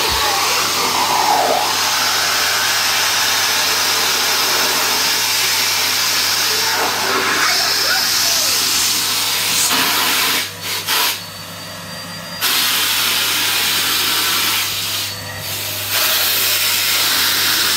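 Numatic Hetty cylinder vacuum cleaner running steadily with a loud rushing hiss. Its level drops twice, briefly, after about ten seconds and again near the end.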